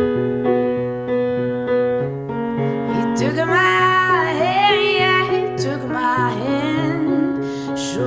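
Background music: sustained keyboard chords, with a sung vocal line coming in about three seconds in.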